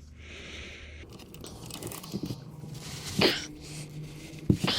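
Socket wrench working at a stubborn 12mm motorcycle oil drain plug: scattered metal clicks and scrapes, with a sharp crack a little over three seconds in. The plug is hard to break loose, which the owner puts down to having overtightened it.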